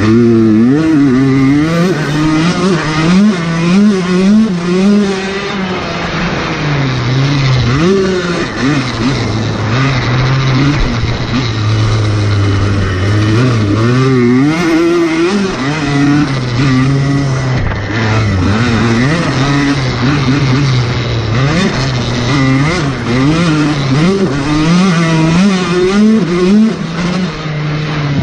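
Honda motocross bike engine under load, revving up and dropping back over and over as the rider accelerates, shifts and brakes for turns.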